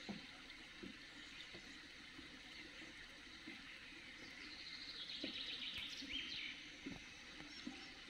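Faint, steady trickle of spring water, with a songbird singing a short rapid trill about halfway through.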